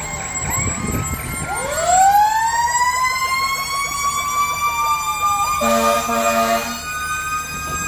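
Several fire engine sirens wailing together as the trucks pass, one winding up slowly from a low to a high pitch and holding there, with a loud horn blast about six seconds in.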